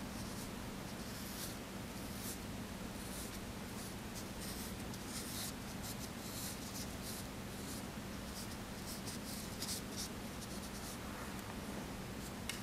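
Faint swishing and scratching of a rooster-feather ink brush stroked across paper, many short strokes at irregular intervals, over a steady low hum.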